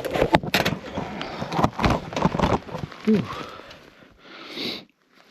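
Footsteps crunching through deep snow, irregular and heavy, with breathing and a short grunt about three seconds in; the sound cuts off suddenly near the end.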